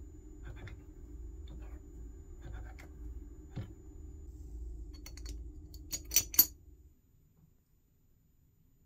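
Light clicks and scratches of hands handling a small metal model engine, with a pair of sharp metallic clicks about six seconds in, over a steady low hum that stops about a second later. The engine is not running.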